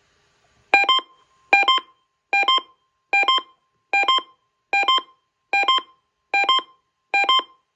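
Electronic alert beeping: a short two-note chirp repeated nine times, about every 0.8 seconds.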